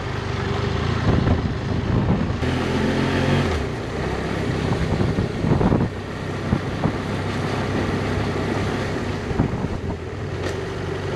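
Motorcycle engine running while riding on the road, with wind noise on the microphone.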